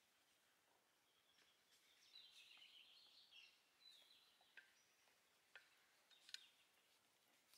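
Near silence: faint bird chirps and a few faint, soft clicks.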